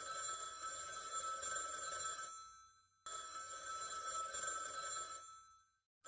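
Telephone bell ringing in long rings. One ring runs on until about two seconds in and trails off. After a pause of under a second, a second ring of about two seconds follows and also fades away.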